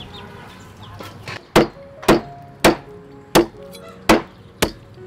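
Meat cleaver chopping raw chicken on a round wooden chopping board: six sharp strikes about half a second apart, starting about one and a half seconds in.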